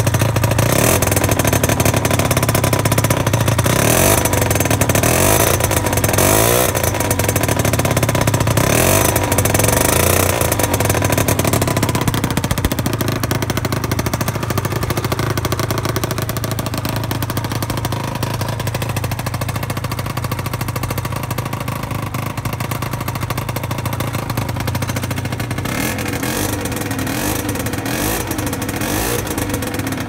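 Peugeot Jetforce scooter's two-stroke engine running through a Tecnigas RS2 expansion-chamber exhaust. It is blipped up and down repeatedly for about the first twelve seconds, then idles steadily, and is revved again a few times near the end.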